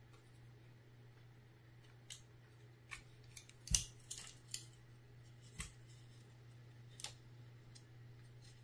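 Small metal parts of a CO2 gun magazine clicking and tapping as they are handled and lined up for a pin to be pushed through: about ten scattered sharp clicks, the loudest a little under four seconds in, over a low steady hum.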